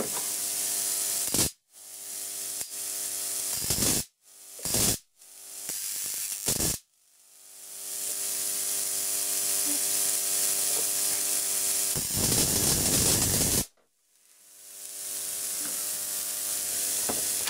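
High-voltage discharge on homemade saltwater capacitors: a steady hissing sizzle of sparks and corona over an electrical buzz. It is broken several times by a sharp spark crack, after which the sound cuts out abruptly and swells back in.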